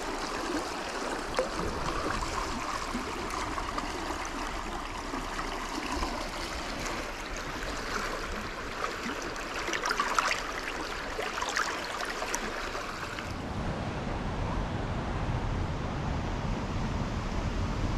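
Rushing stream water, a steady noisy wash with a few sharp clicks about ten seconds in. About three-quarters of the way through, the sound changes abruptly to a duller, deeper rush.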